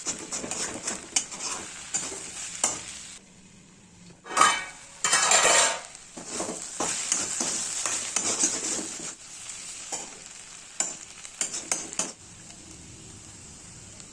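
Food sizzling in hot oil in a pan while a spatula stirs it, scraping and tapping against the pan. A louder rush of sizzling comes a little before the middle.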